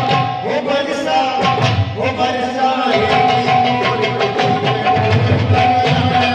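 Braj folk song for a Holi dance: a singing voice over drums and percussion, loud and continuous.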